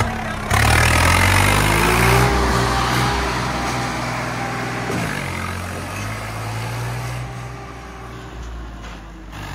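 Swaraj 855 tractor's diesel engine running under throttle, its pitch rising over the first two seconds as it pulls away, then holding a steady note. The engine sound changes abruptly about five seconds in.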